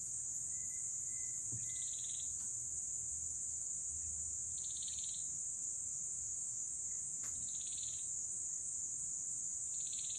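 Tropical rainforest insect chorus: a steady high-pitched drone, with a short pulsed call repeating four times, about every two and a half seconds.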